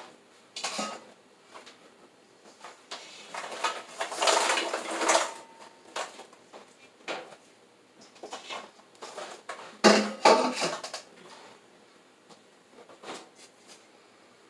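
Kitchen clatter of dishes being moved as a mixing bowl is fetched: scattered knocks and rattles, with a longer rattle about four to five seconds in and the loudest knocks about ten seconds in.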